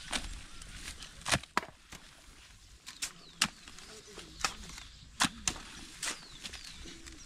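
Hand hoes (jembe) chopping into the packed soil of a pond bank: about nine sharp strikes at irregular intervals, a half second to a second and a half apart.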